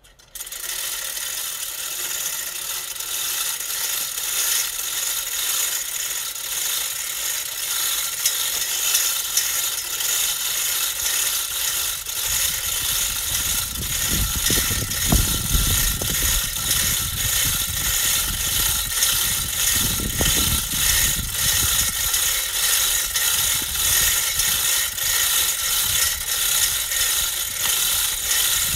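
Manual chain hoist being worked hand over hand: the chain runs through the block with a steady, rhythmic clatter and ratcheting clicks as it hauls a hydrangea stump out under load. A deeper rumble joins in for about ten seconds in the middle.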